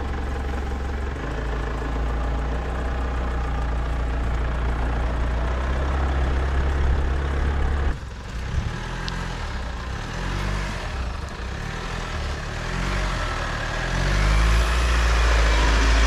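Mitsubishi Triton ute's engine running as the ute drives slowly off through long grass. The sound changes abruptly about halfway through, as the ute moves closer.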